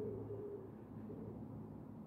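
A pigeon cooing, a soft wavering coo that fades out under a second in, over a steady low background hum.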